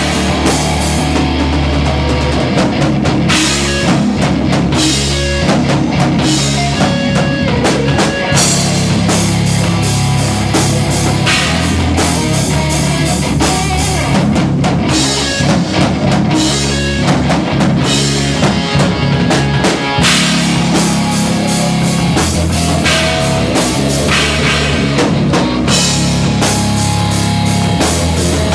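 Loud heavy rock music with a prominent drum kit and heavy low end, playing without vocals.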